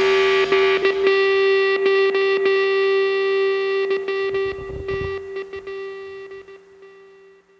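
Background rock music ending: a distorted electric guitar chord is held and rings out, fading away to silence near the end.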